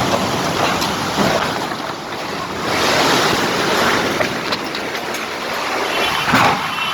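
Heavy downpour driven by strong, gusting wind, swelling and easing. A few sharp ticks from hailstones strike through it.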